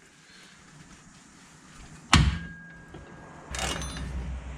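Hand tools working a tight drive-shaft bolt under a car: one sharp knock about two seconds in, then from about three and a half seconds a low rumble with scraping and clicking.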